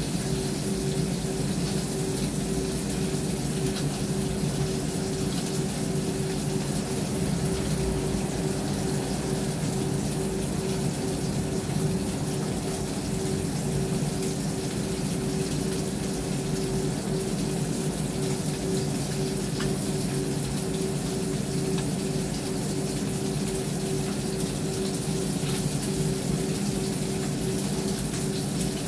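Kitchen range hood extractor fan running steadily with a constant hum, over the hiss of food frying in a pan.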